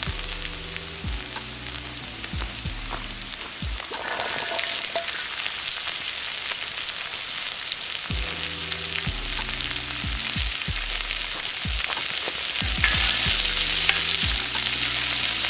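Oil sizzling under vegetables and young white beans on a saj, a large convex steel griddle over a wood fire. A few clicks come about four seconds in as the beans go on, and near the end a metal spatula stirs and scrapes them while the sizzle grows louder.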